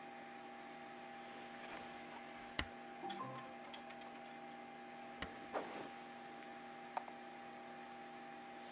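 Low steady electrical hum with three sharp clicks a couple of seconds apart and brief rustles of handling between them.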